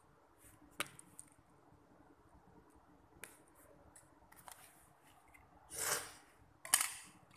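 Plastic Lego pieces and a minifigure clicking and clattering on a hard tiled surface as a hand handles them: a sharp click about a second in, a few soft clicks, then two louder rattling clatters near the end.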